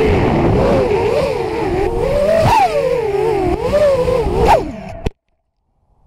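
Quadcopter's Racerstar BR2205 2600KV brushless motors whining in flight, the pitch rising and falling constantly with the throttle, as picked up by the Runcam 3's onboard microphone. Near the end it jumps sharply in pitch, then drops away and cuts off with a click about five seconds in.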